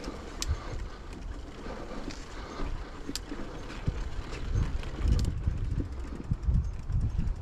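Wind buffeting the microphone of a camera riding on a moving bicycle, gusting harder in the second half, with a few sharp clicks and rattles from the bike.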